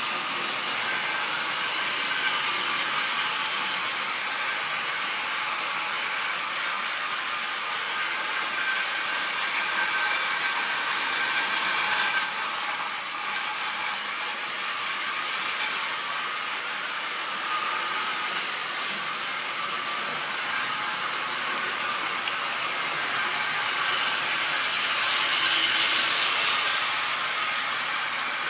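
Model railway trains running round the track: a steady whirring hiss from the small electric locomotive motors and the wheels rolling on the rails. It grows louder as a train passes close, about ten seconds in and again a few seconds before the end.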